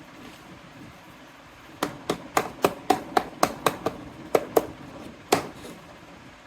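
About a dozen sharp taps in quick succession, roughly four a second, starting about two seconds in, from small hard toy kitchen pieces being knocked or chopped against each other.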